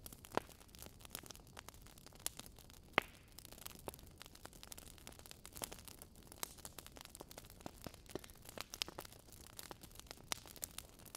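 Irregular crackling: scattered small clicks and pops, a few sharper than the rest, over a low hiss.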